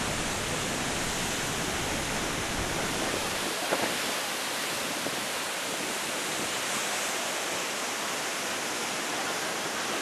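Large waterfall plunging into its pool: a steady, even rush of falling water. The deepest rumble thins out a few seconds in.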